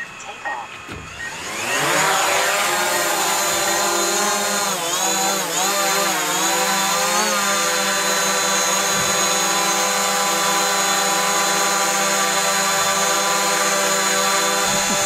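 DJI Mavic Pro quadcopter on its standard propellers, motors spinning up and lifting off, then hovering close by with a steady whine of several stacked tones. The pitch wavers a few times between about four and seven seconds in as it holds position. This is the louder baseline to compare with DJI's low-noise propellers.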